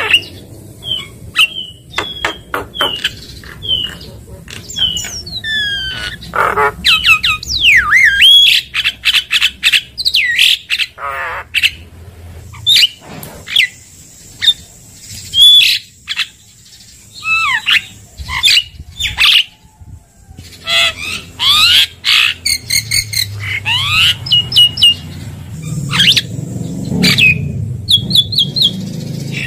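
Javan myna (jalak kebo) singing a long, varied run of short whistles, chirps and harsh squawks, with quick sliding notes and bursts of rapidly repeated notes.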